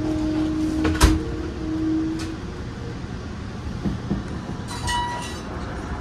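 Train station platform noise: a steady rumbling hum with low steady tones that stop about two seconds in. A sharp knock comes about a second in, and a short electronic beep about five seconds in.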